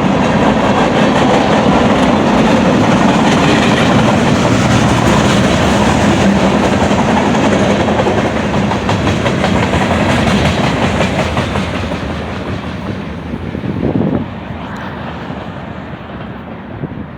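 Freight cars of a manifest train rolling past on the rails with a steady clickety-clack and rumble. The noise fades and drops away sharply near the end as the last cars go by.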